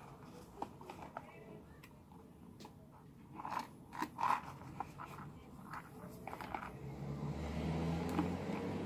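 Handling noise of a small glass-fronted display box being turned in the hands: scattered clicks and rubs of fingers and nails on its frame and glass, with a couple of louder knocks about four seconds in. A low steady hum comes up in the second half.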